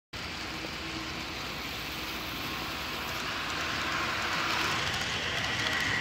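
HO scale model freight train rolling along the track: a steady rolling hiss of small metal wheels on the rails that grows gradually louder as the cars pass, with a thin steady whine coming in near the end.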